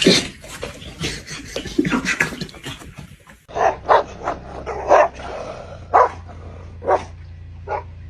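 A dog barking in short, single barks, roughly one a second, from about three and a half seconds in, after a busy mix of other sounds.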